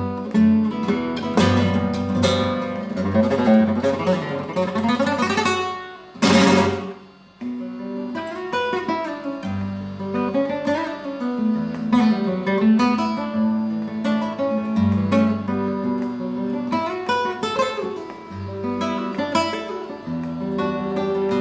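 Spanish nylon-string guitar built with an internal air chamber, played in flamenco style: picked lines and chords, with one loud full strum about six seconds in that rings out, then a brief lull before the playing picks up again.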